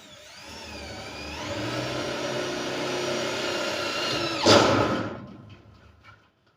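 Handheld electric power tool whose motor whine rises as it spins up and then runs steady. About four and a half seconds in a brief loud rasp cuts in, and then the motor winds down.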